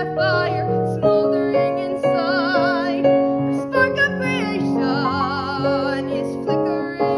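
A woman's solo voice singing a musical-theatre song over piano accompaniment. She holds two long notes with wide, even vibrato, one about two seconds in and one about five seconds in.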